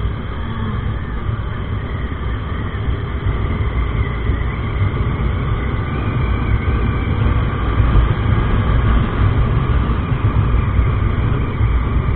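TVS Apache RTR 160 motorcycle riding at speed: heavy wind rumble on the microphone with the road and engine noise underneath, growing slowly louder as the bike accelerates.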